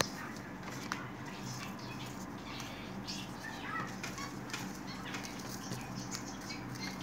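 Freshly filled paper cigarettes being gathered and shuffled by hand on a tabletop: light papery rustling and many small soft clicks, over a steady low hum.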